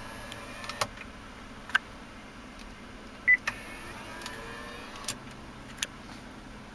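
Navigation touchscreen unit in a 2009 Hummer H2's dash giving one short beep as it is pressed, a little over three seconds in. A few sharp clicks of the buttons and screen come before and after the beep.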